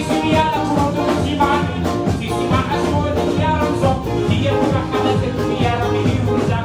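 Live band music with a male singer, amplified loud through the stage speakers, with a steady beat and a bass line under the vocal.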